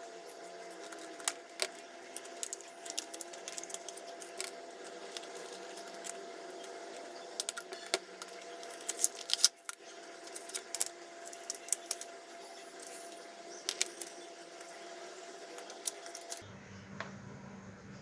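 Packaging being handled and opened by hand: scattered sharp clicks, taps and crinkles, busiest about halfway through, over a faint steady tone.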